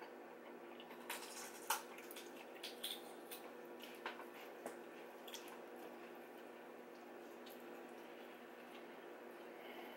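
Close-up wet chewing and lip smacks from people eating pieces of grilled steak, with a quick run of sharp mouth clicks in the first half and fewer after, over a faint steady hum.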